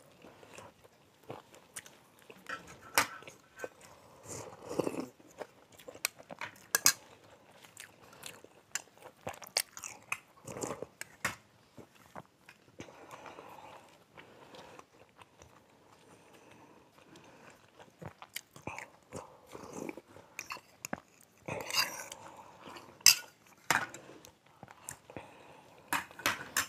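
Close-up eating sounds of idli and sambar: chewing and mouth noises, sips from sambar bowls, and scattered small clicks of spoons against ceramic bowls and plates.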